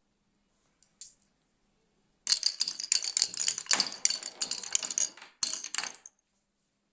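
Balls rolling and clattering down a wooden marble run, a rapid stream of clicks and clacks as they hit the wooden track pieces and cups. A single click about a second in, then dense clattering for a few seconds with a short break near the end.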